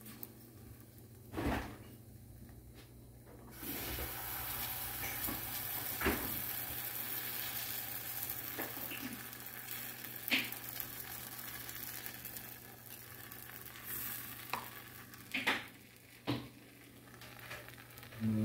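Pancakes frying with a steady sizzle in a nonstick frying pan. The sizzle swells a few seconds in and fades near the end. Several short taps and scrapes of a spatula against the pan come as the pancakes are worked and flipped.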